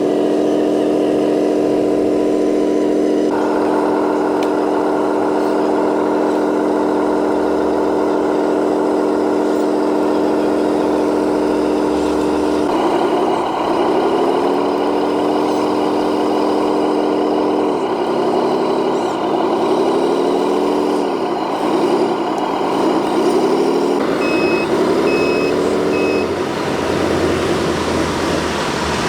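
Radio-controlled construction model running with a steady, pitched mechanical whine that, from about halfway, repeatedly dips in pitch and recovers as it works under load. Three short reversing beeps sound near the end.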